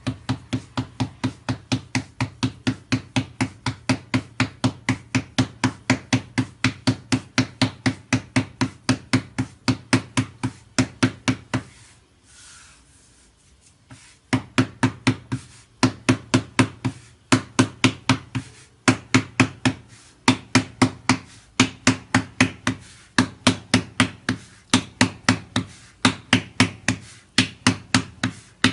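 Hands patting and slapping a round of naan dough flat on a floured countertop: quick, regular pats, about four a second, with a pause of about two seconds around the middle.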